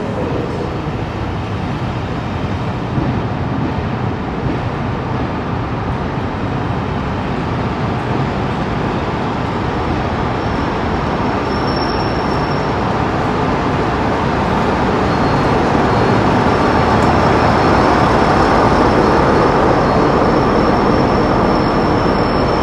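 Passenger coaches rolling slowly through the station, followed by a Class 47 diesel locomotive on the rear of the train coming alongside. The locomotive's Sulzer V12 diesel engine is running, and the sound grows gradually louder over the last several seconds.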